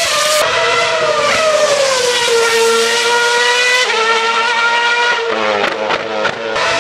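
2011 Formula 1 car's 2.4-litre naturally aspirated V8 running at high revs past the fence, its high-pitched note rising and falling as it works through the corners. A little after five seconds there is a run of short sharp cracks with the pitch stepping down.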